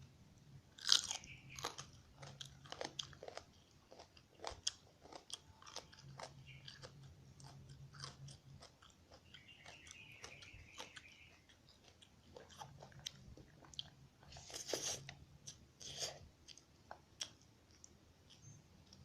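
A person chewing and biting into a meal of chicken rice close to the microphone: a run of wet mouth clicks and smacks, with sharp crunchy bites about a second in and again around fifteen seconds in.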